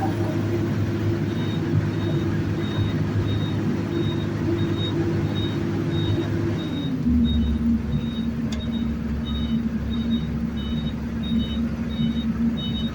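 Heavy diesel earthmoving machinery running steadily, its engine note dropping to a lower, heavier pitch about seven seconds in, while a reversing alarm beeps about twice a second; partway through, a second beeper at a slightly lower pitch joins in.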